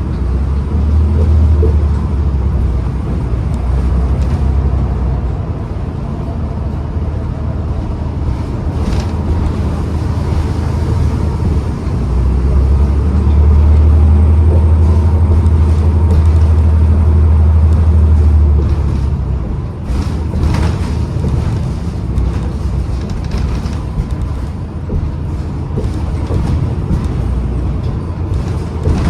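2012 New Flyer XDE40 diesel-electric hybrid city bus driving, its drivetrain giving a heavy low rumble that swells for a few seconds early on and again for a long stretch in the middle, under a faint steady whine. The uploader calls this bus's whine a weird winding sound.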